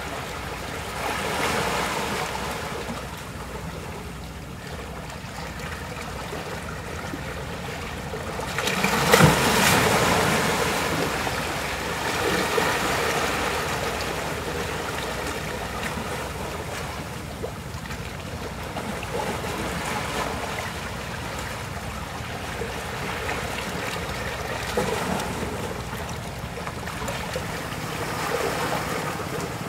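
Sea surf washing in and out among rocks on a rocky shore, rising and falling in surges, the biggest about nine seconds in.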